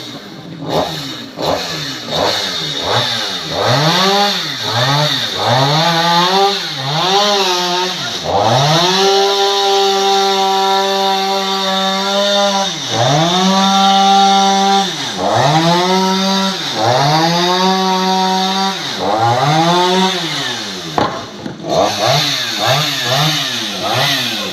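Two-stroke chainsaw engine revving up and down over and over: short throttle blips at first, then held at full speed for about four seconds, then a series of revs, ending in quick blips.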